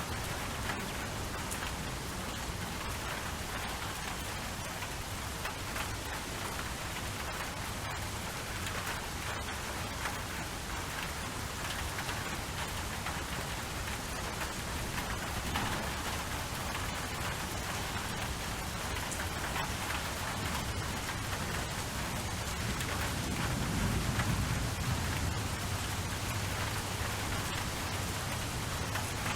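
Steady rain falling, a continuous hiss of drops on surfaces, with a low roll of thunder swelling and fading late on.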